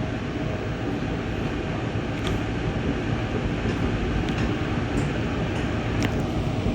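Ride noise inside a moving Amtrak passenger car: a steady rumble of wheels on rail with a few sharp ticks here and there.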